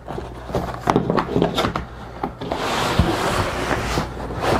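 Handling noise: clicks and knocks as an old leather camera case is handled on a table for the first couple of seconds, then a steady rustling scrape of hands digging through a cardboard box, with a sharp knock about three seconds in and another near the end.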